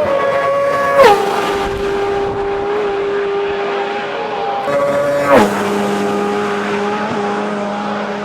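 Two racing sidecar outfits passing close at full speed, about four seconds apart. Each engine's high, steady note drops sharply in pitch as it goes by.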